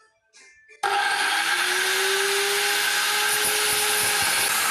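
An angle grinder starting about a second in and cutting into the steel of a front wheel hub, grinding through the welds that fix the CV joint to the drive flange. It is a loud, steady grinding with a humming motor tone that fades out near the end.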